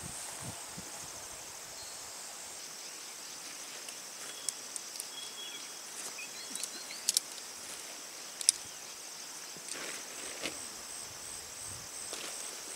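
Insects chirring in a steady high chorus with a fast pulsing beat, broken by a few sharp clicks, the loudest about eight and a half seconds in.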